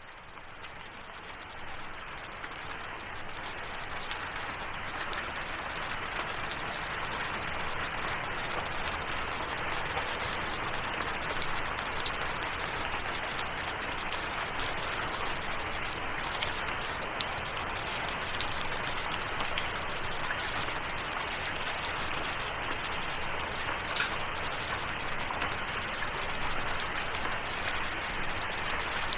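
Steady rainfall, an even hiss of rain with scattered sharp drop hits, fading in over the first few seconds and then holding steady.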